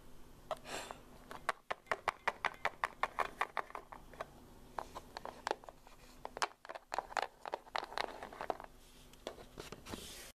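Hard plastic Littlest Pet Shop figures handled and tapped against wooden doll-house furniture and floor: a long run of quick, irregular clicks, with a short pause around the middle, over a faint steady hum.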